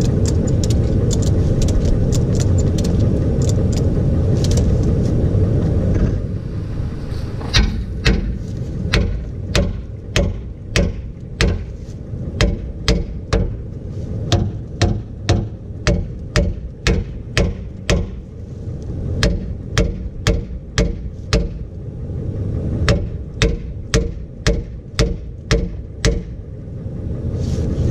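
Hammer blows on a rusted, seized steel trailer hitch, sharp metal strikes about two a second in runs with short pauses, beating it loose. A steady low rumble fills the first several seconds before the striking starts.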